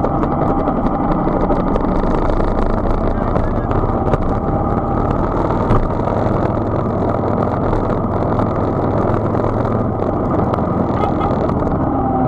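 Motorcycle engine running steadily on the move.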